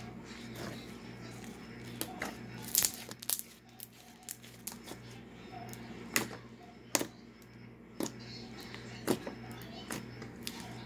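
Glossy slime being pressed and squished by fingers, giving irregular sharp clicks and pops, over a steady low hum.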